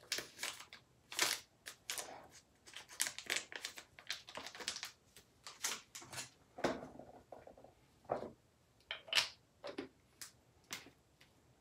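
Irregular light clicks, taps and scrapes from a small plastic makeup container and applicator brush being handled.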